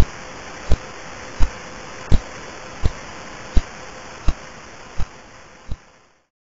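Radio signal of pulsar PSR B0329+54, recorded with the Lovell radio telescope and played as sound: a sharp pulse about every 0.7 seconds, the star's rotation period, over steady hiss. The hiss fades out and the pulses stop near the end.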